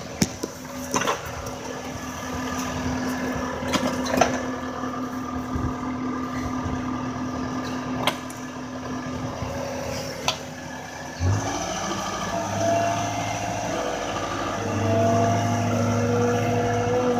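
Diesel engine of a Caterpillar skid steer loader running, with scattered knocks and clanks. About eleven seconds in, the engine note deepens and grows louder as it is throttled up.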